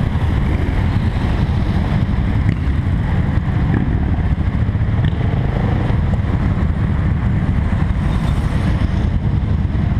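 Motorcycles running at low speed in a group: the BMW F800GS carrying the camera and the cruiser motorcycles just ahead, a steady low engine sound that keeps an even level throughout.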